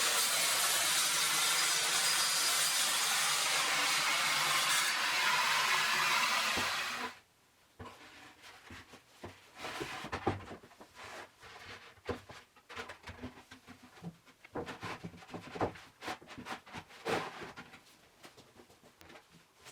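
A power tool runs steadily with a hissing noise and cuts off abruptly about seven seconds in. Scattered light knocks and taps of wood being handled follow.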